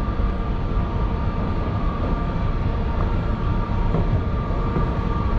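Escalator running: a steady mechanical rumble with a faint constant whine over it.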